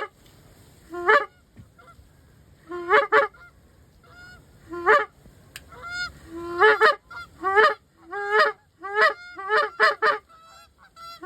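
Goose honks: loud two-note calls that break upward in pitch. They come singly and spaced out at first, then in a fast run of back-to-back honks past the middle.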